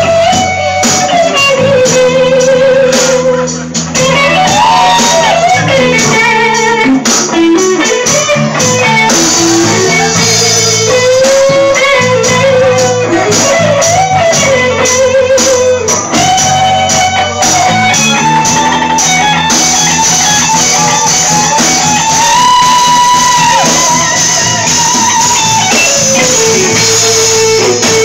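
Electric-guitar-led music, the lead guitar playing long notes that bend up and down over a steady bass line.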